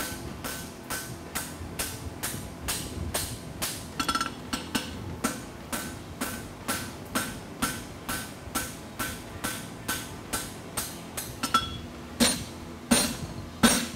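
Farrier's hand hammer striking red-hot steel horseshoe bar stock on an anvil in a steady rhythm of about two and a half blows a second, each with a short metallic ring, as the bar is flattened and drawn out. A few heavier, louder blows come near the end.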